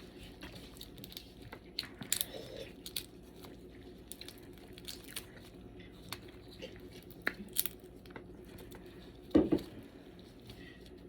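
Blue crab shells being cracked and picked apart while eating, with chewing: scattered short, sharp cracks and snaps. A single louder, low-pitched sound comes near the end.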